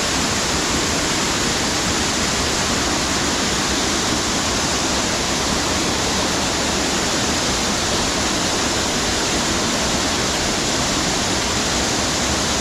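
Waterfall close by: a steady, loud rush of falling water crashing onto rocks.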